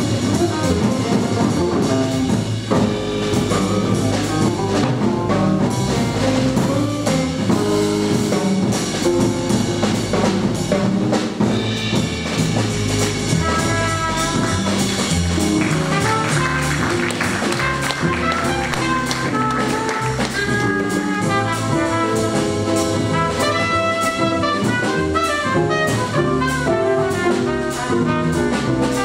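Live jazz quartet of hollow-body guitar, double bass, drum kit and trumpet. The guitar leads over bass and drums at first, and a trumpet takes over the melody about halfway through.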